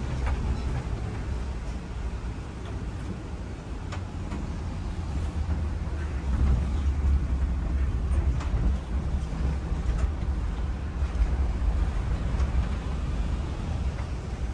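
Inside a moving city bus: a steady low rumble from the bus running on the road, a little louder from about six seconds in, with a few faint clicks and rattles.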